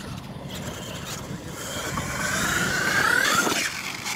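Radio-controlled monster truck accelerating across dirt: a rising motor whine over tyre and dirt noise, building for a couple of seconds. It falls away about three and a half seconds in as the truck leaves a ramp.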